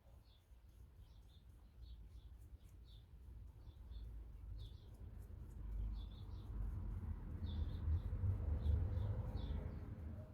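A small bird chirping repeatedly, in short calls every half second or so. A low rumble builds up under it and is loudest a little before the end.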